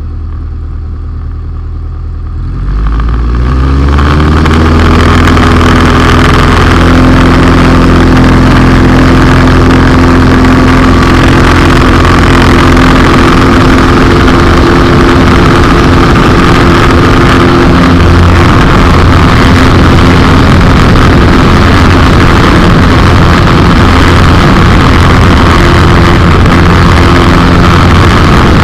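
Light airplane's piston engine and propeller at low power, throttled up about two and a half seconds in. The pitch rises over a second or so, then the engine holds steady and loud at high power, as on a takeoff run.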